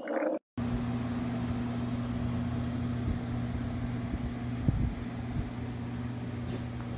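A brief noise and a short dropout, then a steady low electrical or machine hum with hiss, broken by a few small clicks and knocks.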